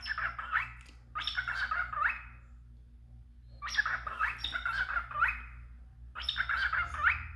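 A pet cockatiel chattering in four short bursts of chirpy, warbling mimicked-speech phrases, with quick rises and falls in pitch. A steady low hum lies underneath.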